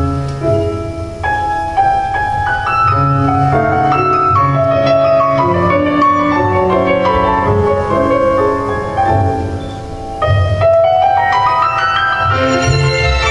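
Tango music led by piano, playing a running melody of separate notes, with a quick rising run a little after the middle.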